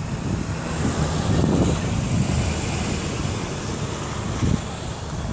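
Wind buffeting the microphone outdoors: a steady low rumble with a hiss over it.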